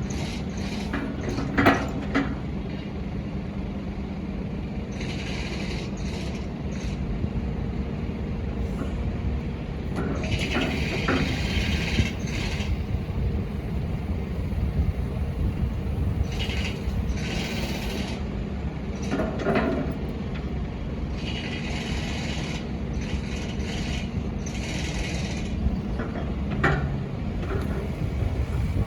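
Wacker Neuson midi excavator's diesel engine running steadily, with repeated bursts of higher-pitched hiss lasting a second or two as the machine works, and a few sharp clunks.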